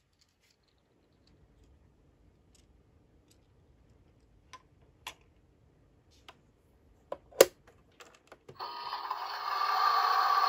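Faint plastic taps as a miniature takoyaki pan is set inside a toy kitchen microwave, then a sharp click as the little door snaps shut about seven seconds in. Just after, the toy microwave's electronic running sound switches on, a steady tone that swells and holds.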